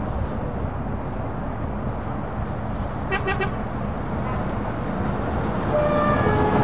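Heavy truck engines running with steady road noise, broken about three seconds in by a quick few short horn toots. Near the end a louder engine sound builds as a truck draws closer.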